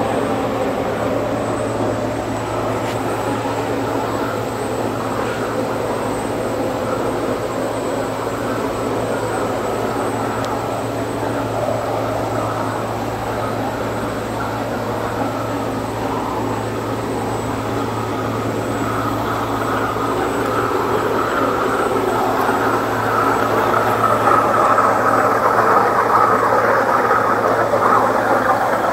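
2007 Techni Intec 612 waterjet running with its 66,000 psi Techni ESP 66 NXT pump: a steady low hum under a dense rushing noise that grows louder over the last third.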